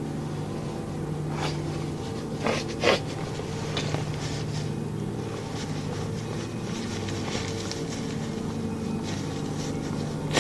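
A steady low droning hum made of several unchanging pitches, the unexplained noise that went on for hours without a break, like a distant airplane that never passes. A few short crackles break in about one and a half, two and a half and three seconds in.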